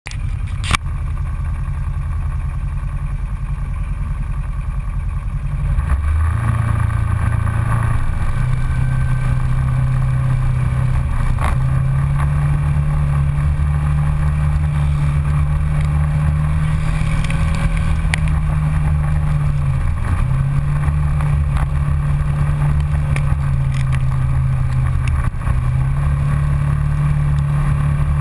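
Polaris Ranger side-by-side UTV engine running under way, its note stepping up about six seconds in and then holding steady with a few brief dips. A sharp tap just under a second in, from a hand at the mount.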